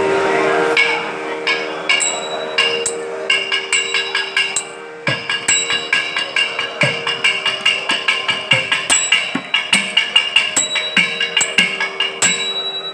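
Thavil drum strokes and small talam hand cymbals striking in rhythm over a steady sruti drone, in Carnatic nadaswaram ensemble music. The strokes are sparse at first and fall into a quick regular beat from about five seconds in.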